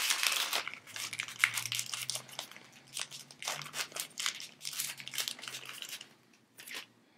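Plastic packet of rubber legs crinkling and rustling as the legs are pulled out of it, in an irregular run of crackles for about six seconds, with one more rustle near the end.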